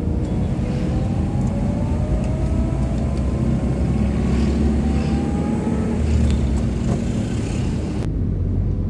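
Road traffic heard from a moving vehicle: a steady low rumble of engines and tyres, with engine notes rising in pitch several times as vehicles accelerate. The higher hiss drops away suddenly shortly before the end.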